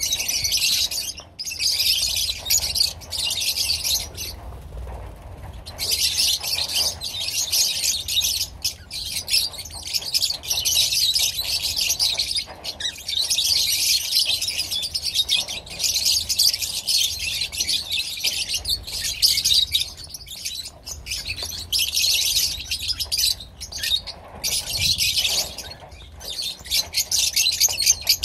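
A large flock of lovebirds chattering and shrieking all at once, a dense high-pitched din that comes in stretches of a few seconds with brief lulls, the longest about four seconds in.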